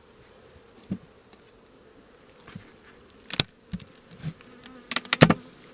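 Honeybees buzzing around an open hive, a faint steady hum, with a few sharp knocks a little over three seconds in and twice more near the end.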